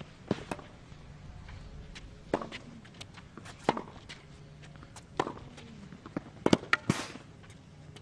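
Tennis rally on a hard court: sharp knocks of racket strings striking the ball and the ball bouncing, about one every second or so, with a quick cluster of the loudest hits near the end.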